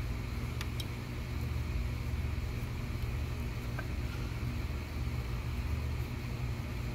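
Steady low rumble, with a few faint clicks as the ignition coil pack and its plug wires are handled in the engine bay.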